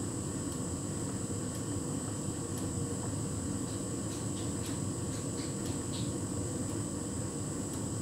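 Hotpoint heat pump tumble dryer running, a duvet tumbling in its drum: a steady low rumble and whoosh of the machine with a thin high whine over it, and faint light ticks about once a second.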